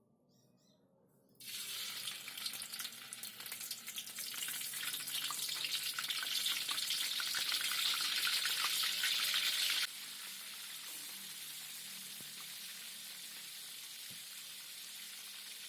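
Food sizzling and crackling in hot frying oil in a pan. The sizzle starts suddenly about a second and a half in, and drops abruptly to a quieter, steadier sizzle near ten seconds.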